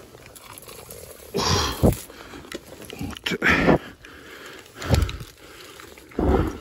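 Heavy, strained breathing close to the microphone from an angler fighting a heavy hooked fish: four loud gusts of breath, one every second and a half or so.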